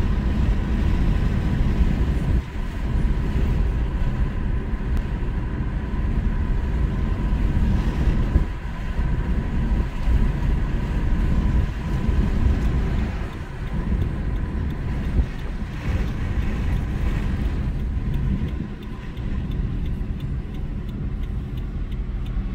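Road noise inside a car's cabin while driving: a steady low rumble of engine and tyres on pavement, with a faint steady high whine.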